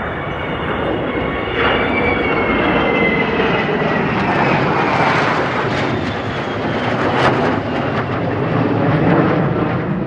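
Military aircraft engines roaring loudly as an aircraft flies past low, its high whine sliding down in pitch over the first few seconds, then a sustained roar.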